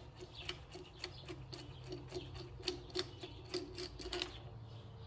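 Light clicking, a few ticks a second at uneven spacing, as the loosened Honda crankshaft pulley bolt is spun out of the pulley by hand.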